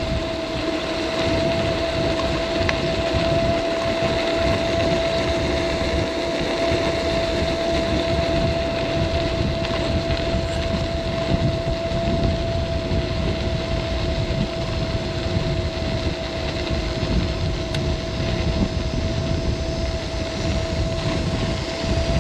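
Caroma P1 electric scooter's 350 W motor whining at one steady pitch at full speed, around 20 mph, over a low, uneven rumble of wind on the microphone and tyres on rough pavement.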